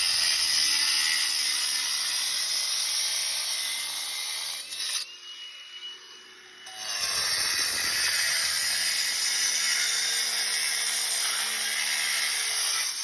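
Handheld power tool cutting into a clay sewer pipe, a loud steady high-pitched grinding whine. It lets off and winds down briefly about five seconds in, then cuts again until just before the end.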